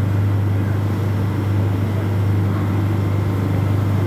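An old boat's engine running steadily: a constant low hum under an even wash of noise, with no change in speed.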